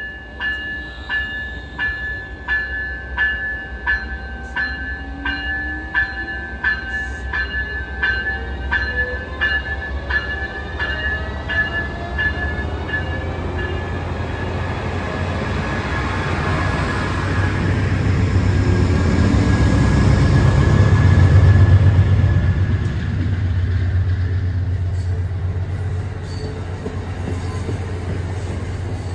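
Amtrak diesel passenger train departing: a locomotive bell rings about twice a second for the first dozen seconds while a whine rises in pitch as the train accelerates. A low diesel engine rumble swells to its loudest about twenty seconds in as the trailing GE P42DC passes, then eases into the steady rolling of the passenger cars.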